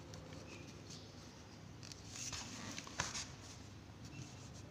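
Pen writing on paper, a faint scratching of strokes, with a single sharp tap about three seconds in.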